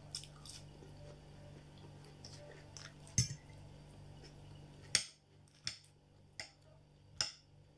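Close-up eating sounds: chewing of bread and stewed cabbage with potato, heard as short, sharp mouth clicks. A louder click comes a little after three seconds in, and in the second half the clicks fall into a regular chewing rhythm of about one every three quarters of a second.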